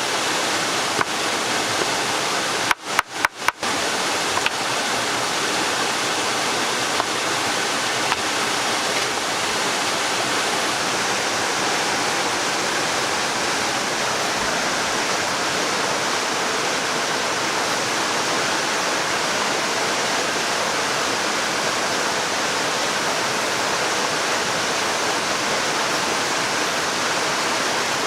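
Steady rush of flowing water, unbroken except for a few brief dropouts about three seconds in.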